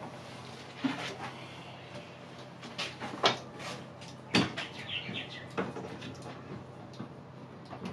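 A string of irregular knocks and clunks from a melamine drawer cabinet being handled. A few of them are sharp and loud, with lighter clicks between, and there is a short scraping rattle about halfway through.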